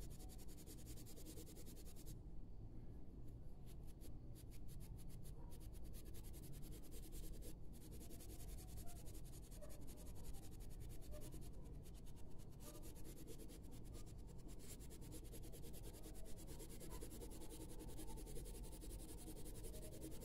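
Faint scratching of a coloured pencil shading on drawing paper.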